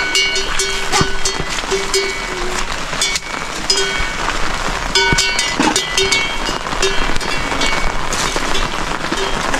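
Heavy rain falling, a steady dense hiss with constant tapping and pattering. Short pitched tones recur about once a second over the rain.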